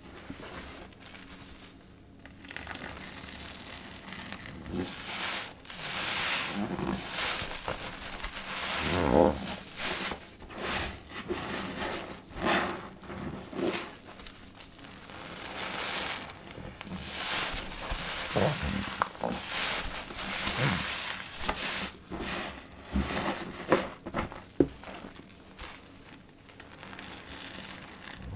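Soap-soaked blue sponges being squeezed and pressed by gloved hands in a basin of liquid-soap foam: wet squelching and the crackle of foam, in repeated irregular squeezes.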